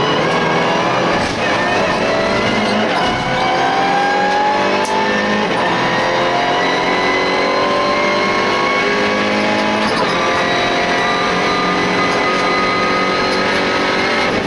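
MINI Challenge race car's engine heard from inside the cockpit at racing speed, its pitch climbing under acceleration and dropping back at gear changes about six and ten seconds in.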